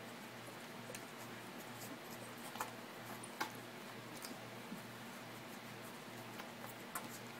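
Faint small clicks and smacks of Miniature Bull Terrier puppies suckling at their mother, a few sharper clicks standing out, over a low steady hum.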